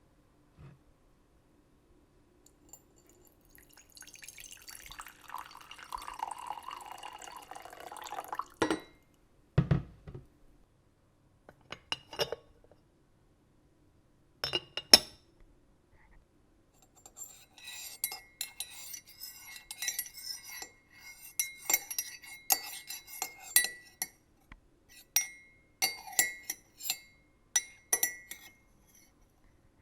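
Water poured from a jug into a mug, its pitch rising as the mug fills, followed by two knocks. Then a teapot lid lifted and set back with a few sharp clinks, and finally a long run of quick small clinks and rattles of kitchenware.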